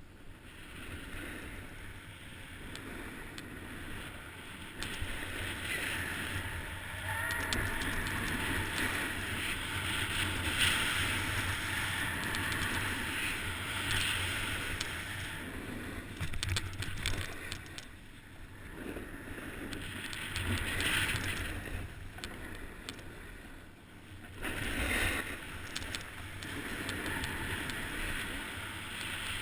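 Skis sliding and scraping over packed snow on a downhill run, the hiss swelling and fading every few seconds, with wind buffeting the microphone.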